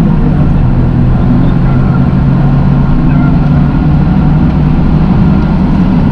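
Toyota GR Yaris's three-cylinder engine running at a steady pitch while the car is driven, over a steady noise of road and wind.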